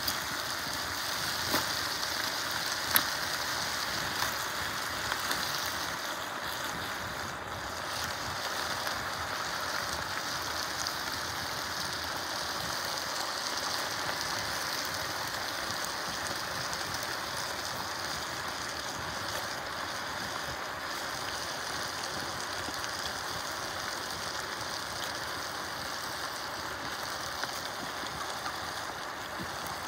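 Steady sizzling of diced potatoes, carrots, onion and clams frying in oil in a large, very hot clay cazuela over a wood fire, with a few sharp pops in the first three seconds.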